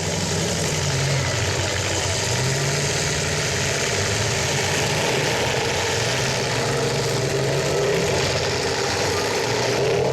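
Several demolition-derby pickup truck engines running together in a continuous wash of engine noise, revving up and down.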